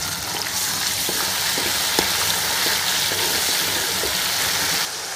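Chopped tomato, onion and whole spices frying in hot mustard oil in a pan: a steady sizzle that drops off suddenly shortly before the end. A single sharp click sounds about two seconds in.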